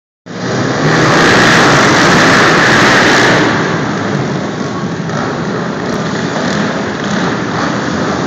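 Several ATV engines revving together as the quads race off, echoing in a large indoor arena; loudest for about the first three seconds, then a little lower.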